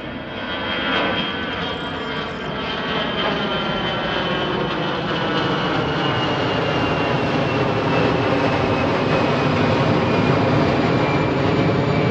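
Jet airliner flying low overhead. Its engine noise builds over the first few seconds and then holds steady, with a high whine slowly falling in pitch as it passes.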